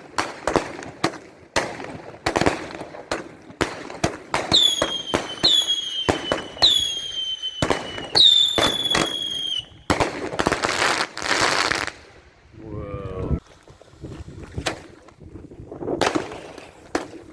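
Consumer fireworks going off in a rapid string of sharp bangs and crackles. About four seconds in, several whistling fireworks join, each a high whistle that dips briefly at the start and then holds. Hissing bursts follow, and then a lull.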